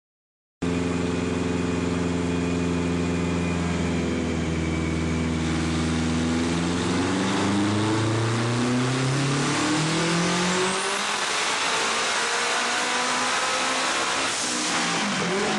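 Turbocharged Subaru Impreza WRX STI flat-four running on a chassis dyno, a power run checking the tune. It cuts in about half a second in and holds steady revs, then climbs steadily in pitch for about eight seconds before the revs fall away sharply near the end.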